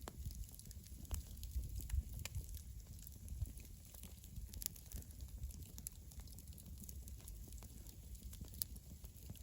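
Campfire crackling: scattered sharp pops and snaps at irregular intervals over a low rumble.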